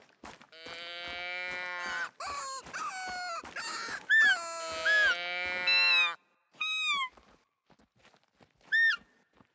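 High-pitched vocal calls: a run of long, held cries with strong overtones for about six seconds, then two short squeaks that rise and fall, spaced well apart near the end.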